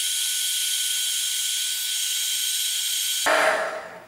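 Small 300-watt hot-air heat gun running steadily, its fan giving a hiss with a faint whine, as it blows hot air onto heat-shrink tubing over soldered servo wire joints. It cuts off a little over three seconds in, with a short falling tail as it winds down.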